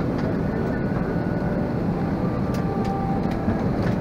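Steady rumble and hiss of an airliner cabin during boarding, the air-conditioning and aircraft systems running, with a few faint clicks.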